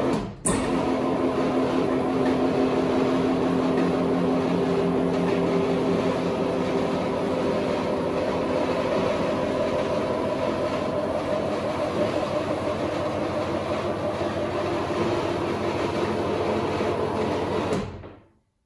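Electric two-post vehicle lift running, its hydraulic pump motor making a steady drone as it raises the car body off the dropped front subframe. The motor stops briefly just under half a second in, then runs on and cuts off near the end.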